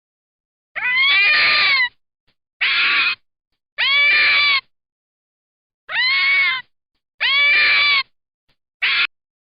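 A cat meowing six times in high-pitched calls, each under a second long and the last very short, with silence between them.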